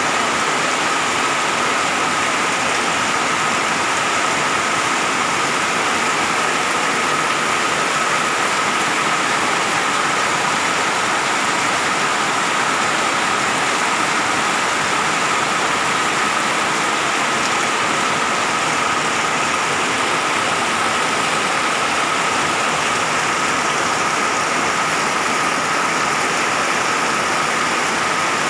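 Steady rain falling, an even unbroken hiss with no let-up, with a steady high tone running through it.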